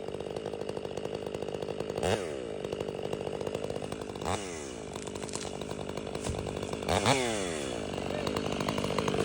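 Stihl MS 500i fuel-injected two-stroke chainsaw running, blipped up to high revs and back down three times, about 2, 4 and 7 seconds in.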